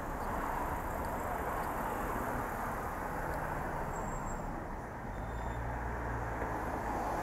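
Street traffic: car engines running and cars passing in a steady rush of noise, with a low engine hum from a nearby car from about the middle on.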